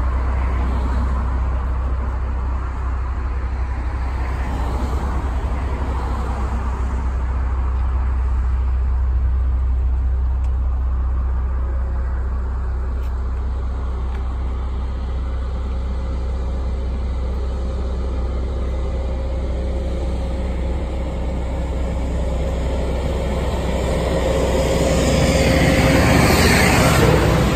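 Steady low rumble of a car engine running, growing louder near the end.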